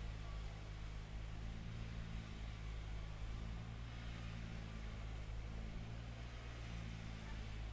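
Low, steady hum of a construction machine's engine running at a constant speed, under an even hiss, with no changes in pitch or load.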